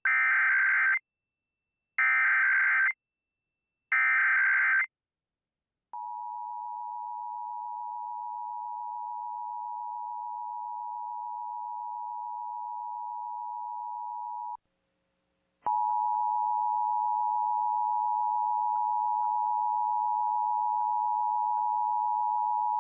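Emergency Alert System test signal: three one-second bursts of the screechy SAME header data tones, then the steady two-tone attention signal held for about eight and a half seconds. It breaks off and starts again, louder, for about eight seconds more.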